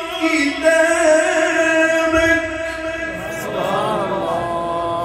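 A man's voice reciting the Quran in a melodic, drawn-out style, holding long sustained notes. About three seconds in the voice moves into a wavering, ornamented run before breaking off at the end.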